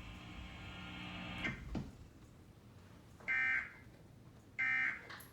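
Emergency Alert System end-of-message data bursts: two short, high-pitched digital bursts about 1.3 seconds apart, the code that closes the alert. Before them a steady hum stops about a second and a half in.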